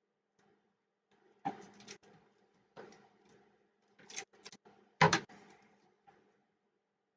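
Handling noises on a workbench: a series of short knocks, taps and rustles as things are picked up and set down, the loudest knock about five seconds in.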